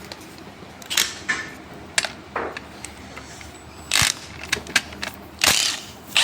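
Metal tool clicks and knocks of a hand socket wrench on the alternator pulley's nut as it is loosened and taken off: a handful of separate sharp clicks, the loudest about four and five and a half seconds in.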